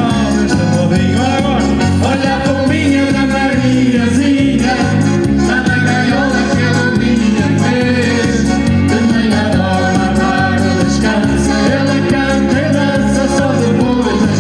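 A band playing a song with a lead singer, over a steady beat and a pulsing bass line.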